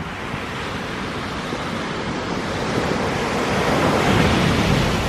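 Ocean waves breaking on the beach. The surf swells to its loudest crash about four seconds in, with wind buffeting the microphone.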